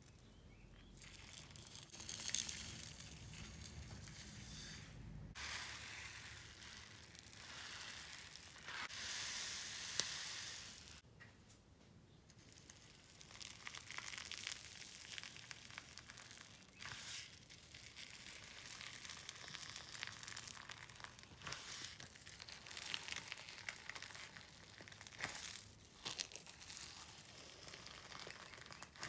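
Thick clay slime with polystyrene foam balls mixed in being squished and stretched by hand, giving irregular crackling, crinkling and squishing.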